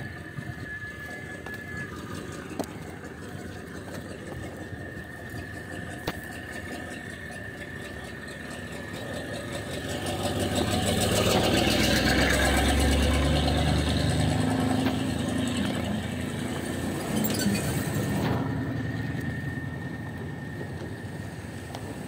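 A motor vehicle's engine running close by, growing louder to a peak about halfway through and then fading away, as when a vehicle drives past.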